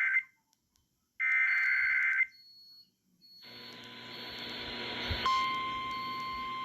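Emergency Alert System SAME digital data bursts: one ends just after the start and another lasts about a second, the last two of the three end-of-message bursts that close an alert. Then a hiss of static swells up, and a steady high tone sets in about five seconds in.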